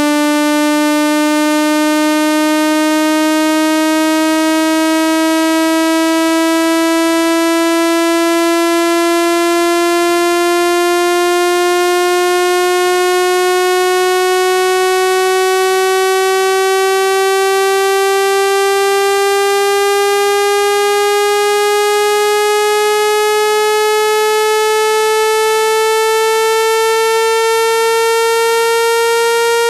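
Synthesized speaker-cleaning tone: a loud, steady electronic buzz rich in overtones whose pitch glides slowly upward throughout. It is meant to shake trapped water out of a phone speaker.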